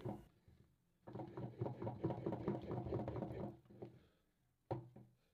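Thick bean batter being beaten by hand in a bowl: quick, rhythmic slapping strokes that whip it fluffy, stopping about three and a half seconds in, then a single knock near the end.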